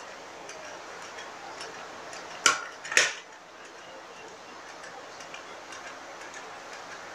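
Metal hand-operated chakli maker (lever-type noodle press) being worked to extrude rice noodles, with faint, steady clicking and two sharp metallic clicks about half a second apart roughly two and a half seconds in.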